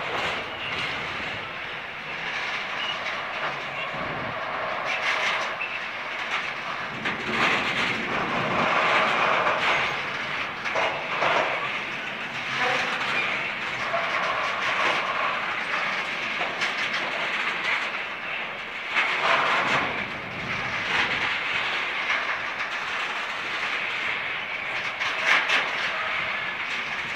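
Container freight train rolling past at close range: a steady rush of wheels on rail, with repeated clicks as the wagons' wheelsets run over rail joints.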